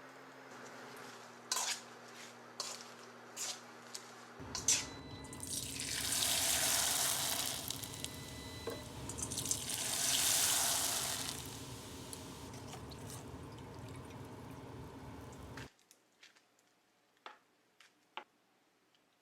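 Water running from a kitchen tap into a sink, swelling louder twice, then shut off abruptly, after a few light clicks and knocks.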